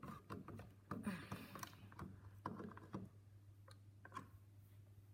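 Faint scattered clicks and light scrapes of hands and a screwdriver working the wire terminals on a fire alarm pull station, over a low steady hum.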